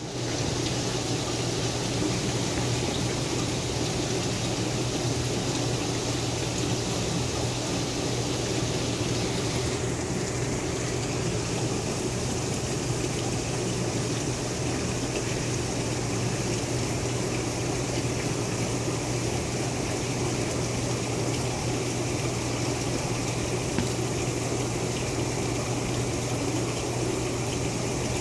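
Steady hum of a water pump with water running and circulating in a holding tub, unchanging throughout.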